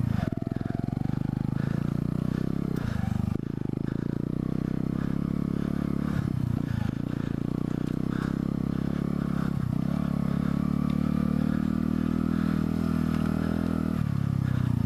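Mutt Hilts 125's single-cylinder four-stroke engine running as the motorcycle is ridden over a rough dirt track, the revs dipping and picking up again several times as the throttle is eased off and reopened.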